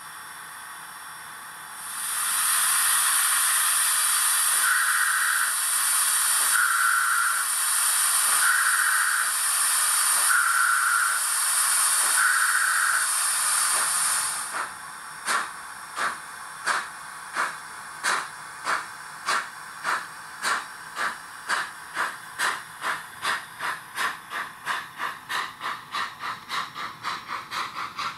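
Steam-locomotive sound from the ESU LokSound V5 micro decoder in a Roco model of the DR class 93 tank engine as it starts away. First a loud steady steam hiss with a pulsing note about every one and a half seconds. Halfway through the hiss stops and distinct exhaust chuffs begin, getting steadily faster as the locomotive picks up speed.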